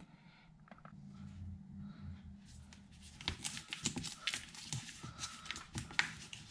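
Faint handling noises from hands: rustling and small clicks. They start sparse and grow busier from about two and a half seconds in.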